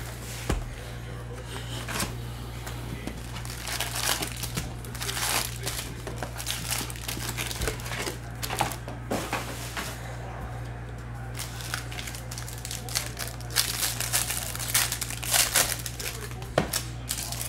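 Foil wrappers of Bowman Jumbo baseball card packs crinkling and rustling as the box is opened and the packs are handled, with a pack being torn open near the end.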